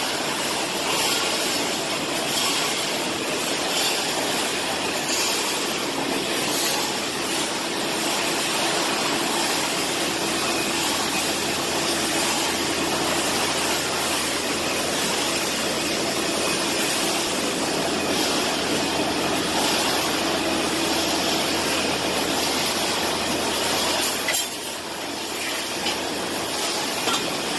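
Nail and screw weighing-and-bagging line running: a steady mechanical noise with a low hum underneath, dipping briefly near the end.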